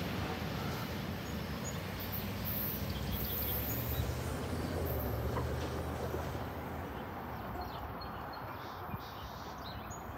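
Commuter train pushed by an ALP-46A electric locomotive running away down the track, its rumble fading as it goes.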